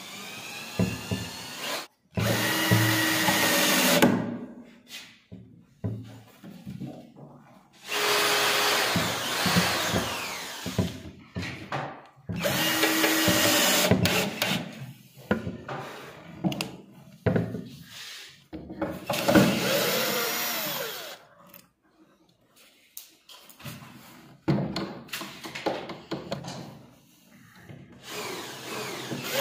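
Cordless drill-driver driving screws through a cabinet lift-stay bracket into the cabinet panel. The motor runs in several bursts of a few seconds each, with pauses and small handling knocks between.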